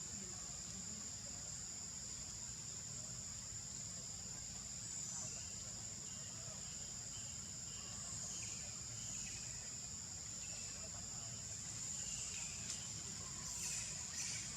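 Insects droning steadily in a continuous high-pitched buzz, with a few faint short chirps partway through and some light clicks near the end.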